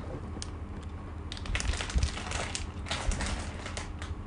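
Plastic snack packaging crinkling and crackling as it is handled, a dense run of crackles through the middle.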